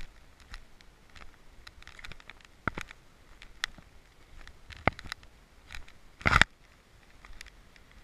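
Footsteps on a dirt forest trail with scattered crackles of leaves and twigs underfoot, and one louder bump about six seconds in.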